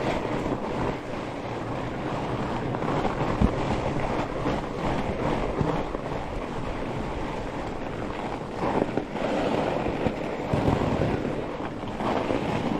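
Fat bike tyres rolling over firm, crunchy groomed snow, with wind rushing over the microphone. There is one sharp knock about three and a half seconds in.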